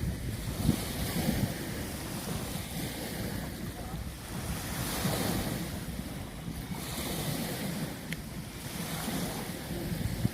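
Ocean waves breaking and washing in, a hissing surge that swells and fades every few seconds over a low rumble, with wind buffeting the microphone.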